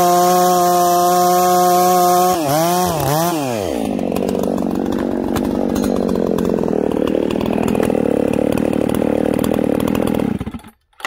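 Ported Husqvarna 288 XP two-stroke chainsaw running wide open at a steady pitch as its freshly filed chain pulls itself through a log. About two and a half seconds in, the revs drop and rise twice as the cut finishes. The saw then idles for about seven seconds and shuts off shortly before the end.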